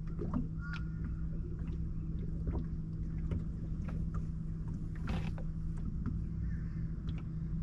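Steady low hum of a boat's motor, with scattered light clicks and knocks around the boat.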